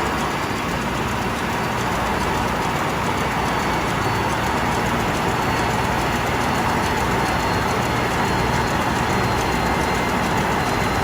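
Ship's main engine and its turbocharger running steadily: a loud, even mechanical noise with a faint steady whine over it.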